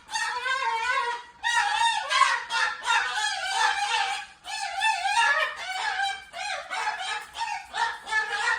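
A pet parrot calling loudly and almost nonstop: rapid, wavering squawks and chatter with only brief breaks.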